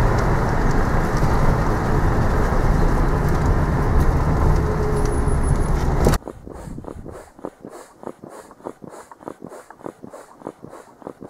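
Car driving, a steady rumble of engine and road noise, cut off suddenly about six seconds in. After that come quieter short rhythmic knocks or scuffs, several a second.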